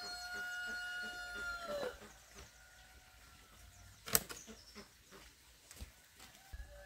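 A rooster crowing, its long held final note stopping about two seconds in. A single sharp click comes about four seconds in.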